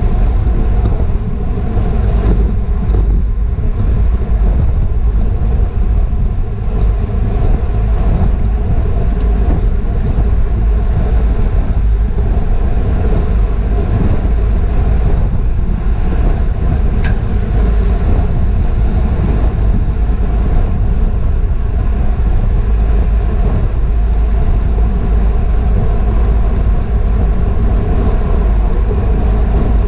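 Steady, loud wind rumble on the microphone of a GoPro carried by a bicycle racing at speed in a criterium pack.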